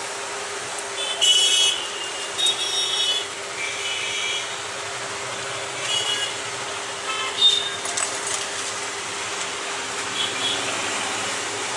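Steady street traffic noise with short vehicle horn toots several times over.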